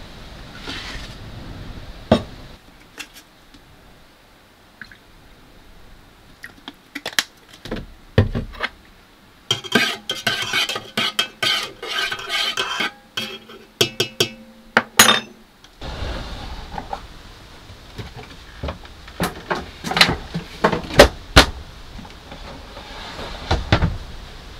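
A metal spoon stirring and clinking against the inside of a metal camp mug, a quick run of ringing clinks lasting about six seconds in the middle, amid scattered knocks of things being set down and handled on a wooden counter.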